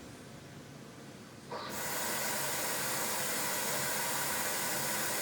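Central vacuum switching on about a second and a half in, then running with a steady airy noise of suction through the hose.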